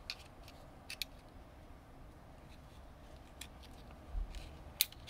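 Flathead screwdriver prying at the metal casing of a 9-volt battery: a few scattered, sharp metallic clicks and scrapes, the loudest near the end.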